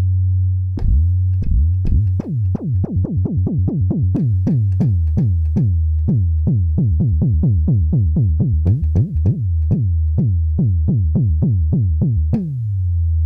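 Synthesized sub boom bass patch in Native Instruments Massive, played as a quick run of repeated notes, about three a second. Each note starts with a fast downward pitch drop from its envelope into a deep, held sub tone, in the trap-style 808 manner. The notes stop about a second before the end and the sub rings on.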